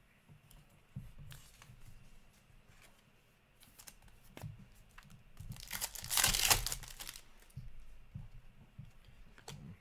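A hockey card pack wrapper is torn open with a loud crinkling rip about six seconds in, amid soft clicks and rustles of cards being handled.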